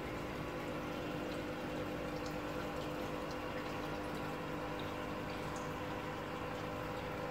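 Aquarium air stone bubbling steadily, a constant fizz of rising bubbles, over a steady hum from the tank's pump.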